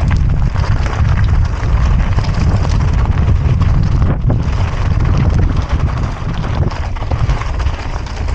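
Mountain bike riding down a dirt trail: wind buffeting the camera microphone, with tyre noise and frequent clicks and rattles from the bike over rough ground.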